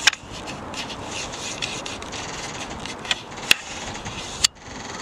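Rubbing and scraping handling noise on a handheld camera's microphone, carried while walking, with a few sharp clicks about three to four and a half seconds in.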